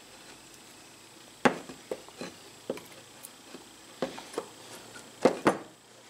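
Scattered short clicks and knocks of small shifter parts and hand tools being handled and set down on a workbench while the shifter's bushings are fitted by hand. The sharpest knocks come about a second and a half in and twice near the end.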